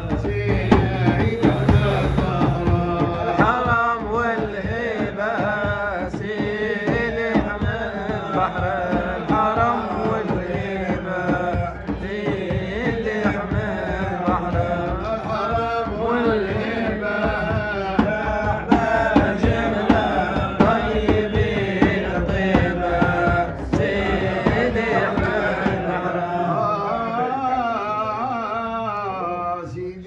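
A male voice singing a Sufi madih (devotional praise song) in long, melismatic lines over a steady, dense beat of hand drums. The drumming thins out near the end while the singing carries on.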